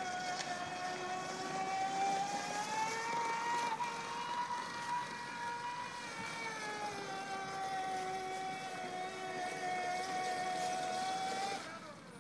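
Electric beach wagon's drive motor whining steadily. Its pitch rises a few seconds in, holds, then settles back down, and the whine stops abruptly near the end.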